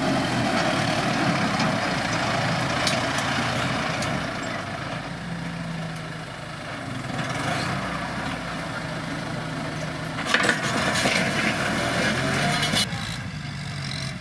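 Kubota M7040SU tractor's four-cylinder diesel engine running steadily while pulling a disc plough through dry field soil, with scraping and rattling noise that grows louder from about ten to thirteen seconds in.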